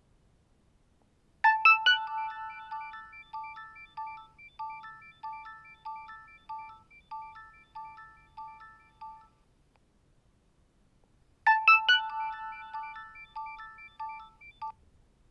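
Nokia 6260 'Calendar alert' tone from the phone's speaker: three quick opening chimes, then a run of short electronic beeps, about two a second. It plays for about eight seconds, stops, and starts over about two seconds later, stopping again after about three seconds.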